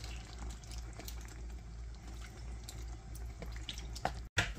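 Thick coconut milk pouring from a carton into a pan of simmering curry, with soft liquid bubbling and dripping over a steady low hum; a couple of clicks near the end.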